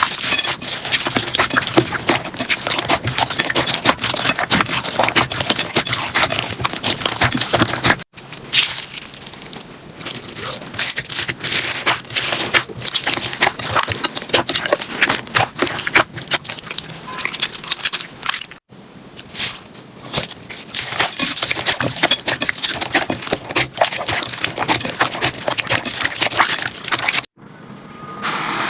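Slime being squeezed, poked and stretched by hand, giving dense crackling and popping clicks. The sound comes in several segments that break off abruptly about 8, 18.5 and 27 seconds in as one clip gives way to the next.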